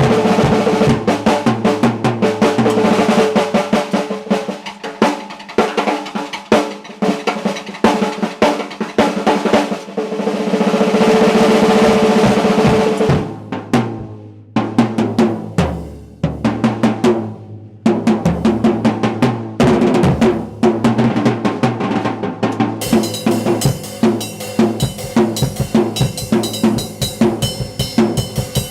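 Drum kit solo: fast rolls across the snare and toms, with bass drum kicks in a sparser middle passage, and cymbals ringing in over the last few seconds.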